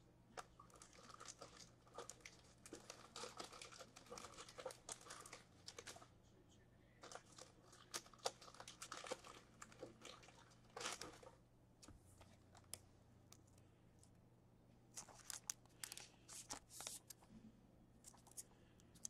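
Faint crinkling and tearing of a trading card pack wrapper being opened and cards being handled. It comes in scattered bursts through the first half, pauses, then returns briefly near the end.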